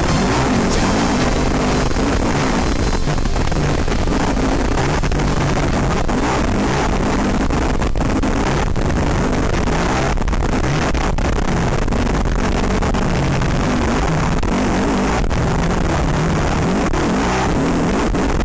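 Off-road vehicle's engine running hard under load at speed, steady throughout, with scattered short knocks and rattles from the rough ground.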